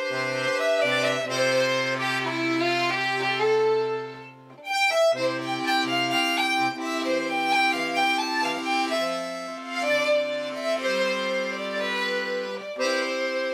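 Instrumental folk tune led by accordion, its melody carried over held bass notes, with a brief break about four and a half seconds in before the tune picks up again.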